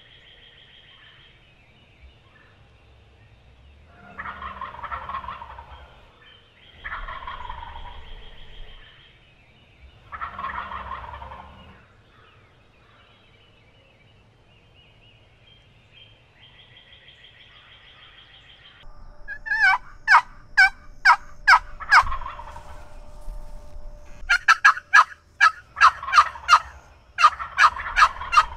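Osceola wild turkey gobbling three times, each gobble a falling call about a second and a half long, a few seconds apart. Later come two quick runs of sharp turkey yelps, about three a second.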